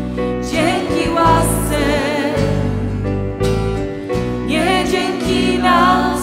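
A church schola singing a Polish Christian song with instrumental accompaniment: sung lines with vibrato over steady held low notes. A new phrase begins about four and a half seconds in.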